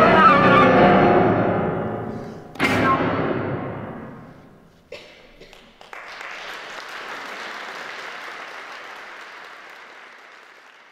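Flute and piano closing a piece: a descending flute line over piano fades, and a final hard-struck piano chord about two and a half seconds in rings away. After a few small knocks, audience applause starts about six seconds in and fades out.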